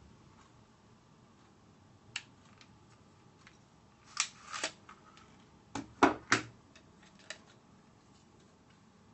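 Metal clicks and clacks from a Marushin AMT Automag gas blowback airsoft pistol being taken apart by hand as its slide and upper assembly are worked off the frame. There is a single click about two seconds in, a short cluster around four seconds, and three sharper clacks around six seconds, the loudest of the lot.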